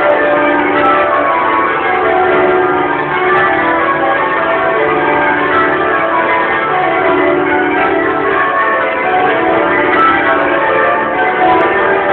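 The church bells of Great St Mary's, Cambridge, change ringing: many tower bells struck one after another in a continuous, even stream of changes, their tones overlapping. Recorded on a phone, so the sound is dull, with no top end.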